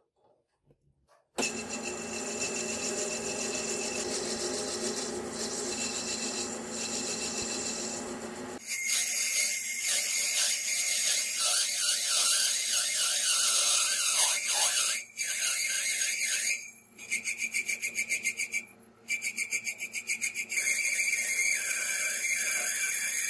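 Metal lathe starting up and running, then its cutting tool turning down a small metal rod: a loud, high scraping screech of the cut from about a third of the way in, breaking off and stuttering on and off as the tool is fed in and out.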